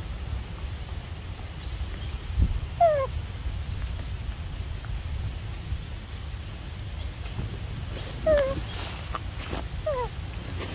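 Pig-tailed macaque giving three short calls, each sliding down in pitch: one about three seconds in and two close together near the end, over a low steady rumble.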